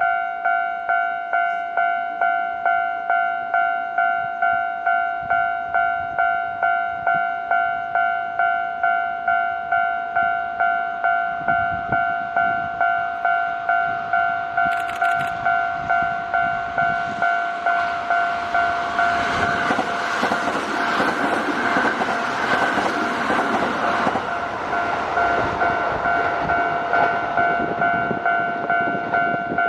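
Japanese railway level-crossing warning bell ringing, an electronic ding pulsing evenly about one and a half times a second. Over the second half a Kintetsu limited express train runs through the crossing, its rumble building, loudest about two-thirds in, then easing off while the bell keeps ringing.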